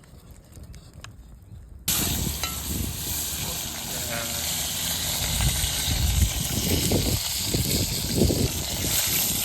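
Hot oil frying in a pot: a loud, steady sizzle that starts suddenly about two seconds in, with uneven low rumbles underneath.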